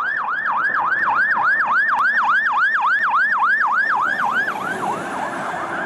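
Toy fire ladder truck's electronic siren, a fast yelp sweeping down and up in pitch about four times a second, fading out near the end.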